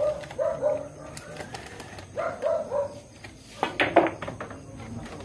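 A pool cue tip strikes the cue ball and the ball clacks into a cluster of object balls, a quick run of sharp clicks about three and a half seconds in. Earlier, a short call of a few notes comes three times.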